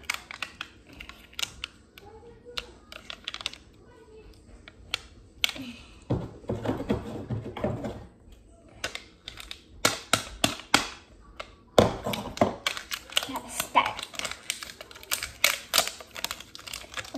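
Fingernails picking and peeling at the plastic wrap on a small slime container: a run of quick crinkles and clicks that grows busier in the second half.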